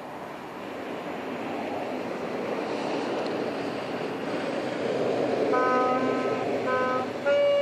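A saxophone sounding a few short, halting notes, then a louder held note near the end. Under it, the rush of a passing vehicle swells over the first few seconds.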